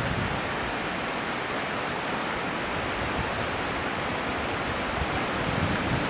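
Steady outdoor rushing noise, even and unbroken, with no bird call or other distinct sound.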